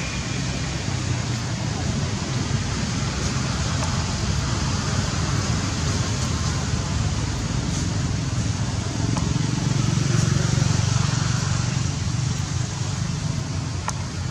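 Steady outdoor background noise with a low rumble, a little louder about two-thirds of the way through.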